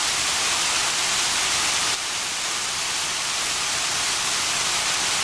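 Steady hiss of water splashing from a fountain's jets, easing slightly about two seconds in.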